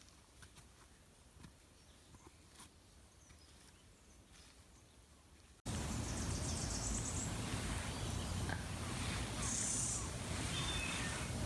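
Faint scattered footstep clicks on a mountain forest trail. About halfway through, the sound cuts to a louder, steady wind-like rush, with two brief bursts of high, fast-pulsing chirring.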